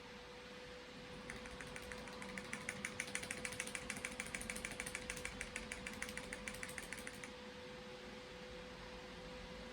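PC fans running with a steady hum, including a large graphics-card fan. Starting about a second in, a keyboard key (F12) is tapped rapidly and repeatedly for about six seconds, to call up the boot menu.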